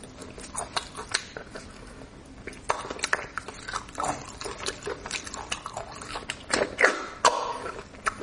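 Close-miked eating of bone marrow: irregular wet smacks, sucking and chewing, growing busier about a third of the way in.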